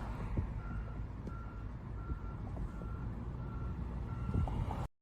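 Reversing alarm on construction equipment beeping steadily, about three beeps every two seconds, over a low rumble; the sound cuts off suddenly near the end.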